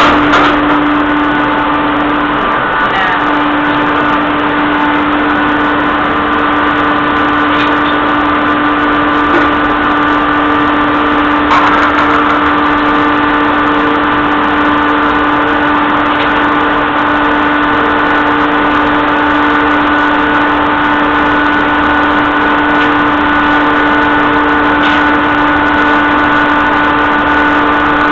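Cotton baling press running: a loud, steady machine drone with a strong steady hum and a few fainter whining tones above it. There are brief knocks about 12 seconds in and again near the end.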